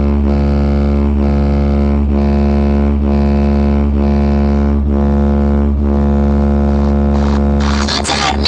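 DJ sound-check music: a loud, steady, buzzing bass drone held on one pitch, pulsing about every 0.8 s. Near the end it breaks into busier music.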